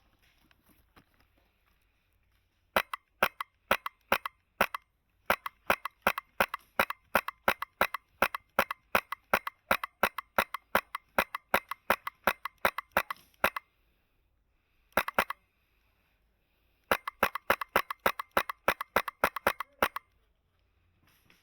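Airsoft rifle fitted with a Polarstar Kythera HPA engine firing, shot after shot, each a sharp pop. It fires a few separate shots, then a long string at several a second, a pair after a pause, and a last, faster string.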